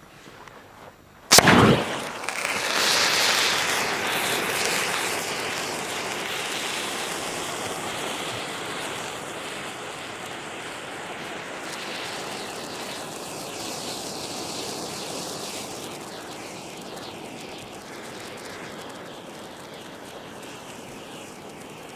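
Red hand flare going off: a sharp bang about a second in as it ignites, then the burning flare hisses loudly, the hiss slowly fading.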